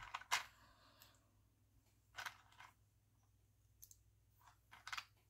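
Small plastic buttons clicking against each other and the plastic organizer box as they are picked out by hand: a handful of faint, scattered clicks, the loudest just after the start and a small cluster near the end.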